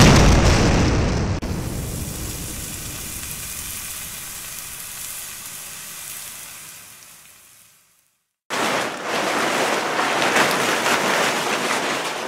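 Intro sound-effect explosion: a sudden loud blast that rumbles and fades away over about seven seconds. After a short silence, a steady rushing noise follows.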